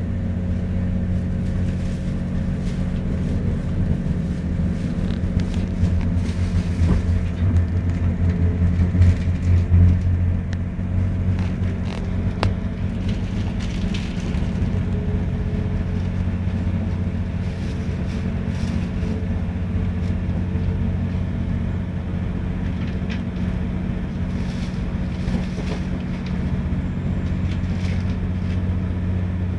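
Diesel passenger train running, heard from inside the carriage: a steady low rumble with an engine hum, swelling a little about eight to ten seconds in, with a few faint clicks and rattles.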